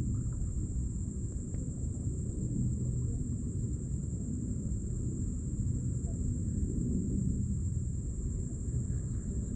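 A low, steady rumble with a thin, steady high-pitched whine above it.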